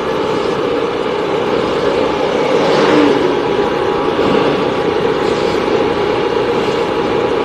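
Steady running noise of a road vehicle on the move, engine and road noise heard from on board, swelling slightly about three seconds in.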